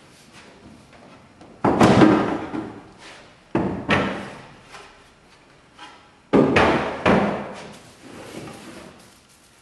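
Wooden knocks and thuds inside a wooden boat hull as interior parts are handled and fitted: three pairs of sharp strikes, about two seconds apart, each dying away over about half a second.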